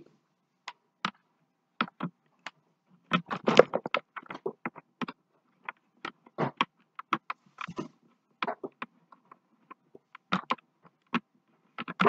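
Irregular plastic clicks, taps and knocks of a handheld cordless vacuum and its charging cable being handled while the plug is worked into the vacuum, busiest about three to four seconds in.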